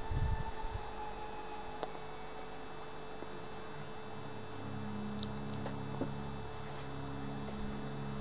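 Steady low electrical hum with a few faint clicks, and a brief low rumble at the start.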